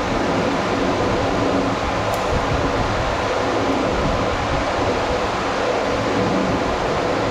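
Large electric floor fan running, a loud, steady rush of air.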